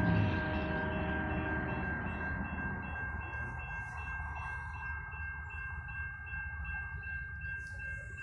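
Railroad grade-crossing bell ringing steadily as the crossing signals activate for an approaching train. A passing truck's engine fades away over the first couple of seconds, leaving a low rumble underneath.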